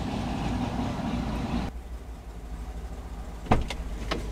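Car engine idling, heard from inside the cabin as a steady low rumble. It cuts off abruptly partway through and gives way to a quieter idle with a sharp click about three and a half seconds in and a smaller one near the end.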